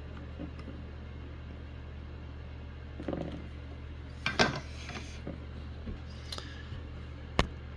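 Small taps and clicks of soldering tools being handled at the workbench over a steady low hum, the loudest tap about four and a half seconds in and a sharp click near the end.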